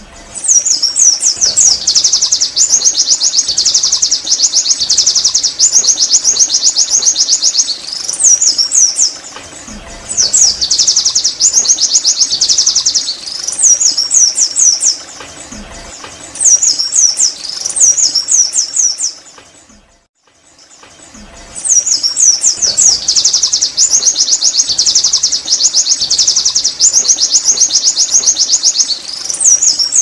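White-eye (pleci) singing loud, fast-twittering runs of high chirps that last several seconds each. There are brief breaks about a third and halfway through, and a longer pause about two-thirds of the way in.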